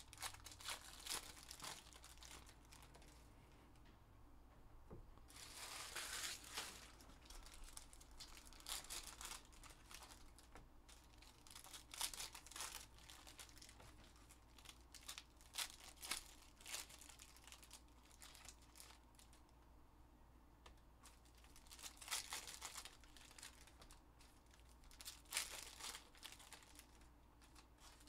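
Foil trading-card pack wrappers being torn open and crinkled by hand, faint and on and off, in several short spells of crackling.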